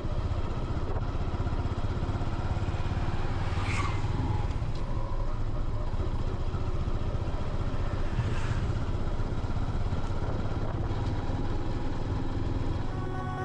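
Motorcycle engine running steadily, a continuous low-pitched drone with no change in speed.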